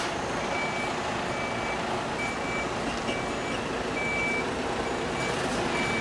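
Truck reversing alarm beeping about once a second over the steady running of a Mercedes-Benz Actros tractor unit's diesel engine, as the tractor backs up to couple to a trailer.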